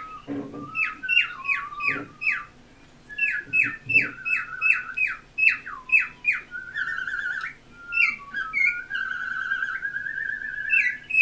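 Pet cockatiel whistling: runs of short, clear notes that each drop sharply in pitch, several a second, broken by longer warbling whistles near the middle and toward the end.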